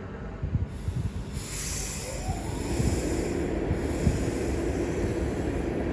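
Class 390 Pendolino electric train pulling away from the platform. Its traction motors whine, rising in pitch as it gathers speed, over a low rumble with a few knocks from the wheels and a growing hiss.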